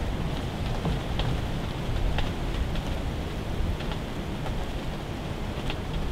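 Snowstorm precipitation ticking irregularly on a hunting ground blind, about two light ticks a second, over a steady low rumble.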